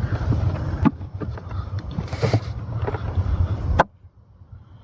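Plastic clicks and rubbing as the cabin air filter's cover and the filter are pulled out from behind the glovebox, over a steady low rumble. A sharp click about four seconds in, after which the rumble cuts off suddenly.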